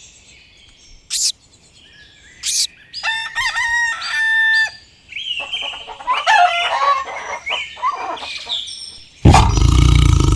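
Rooster crowing: a held, pitched call about three seconds in, with a few short sharp chirps before it and more varied calls after it. Near the end a loud, steady noise cuts in suddenly.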